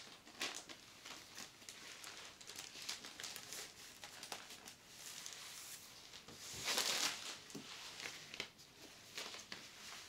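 Faint rustling and crinkling of packaging as an art print and instruction sheets are unpacked, with small scattered clicks and a louder rustle about seven seconds in.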